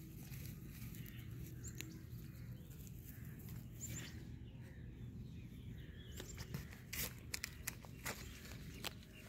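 A hand weeding tool scraping and ticking in dry, clumpy soil, in short sharp strokes bunched together about two-thirds of the way in. A low steady rumble runs under it, with a few faint bird chirps.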